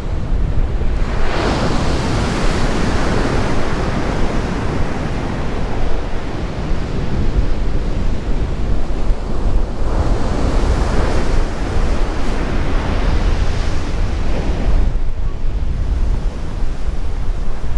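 Sea surf breaking and washing up a sandy beach, swelling twice: about a second in and again around ten seconds in. Wind buffets the microphone throughout with a steady low rumble.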